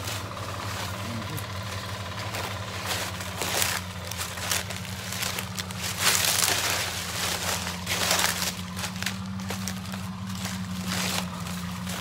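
Leaves and undergrowth rustling and crackling in irregular swells as someone pushes through forest brush on foot, the loudest about six seconds in. A steady low hum runs underneath.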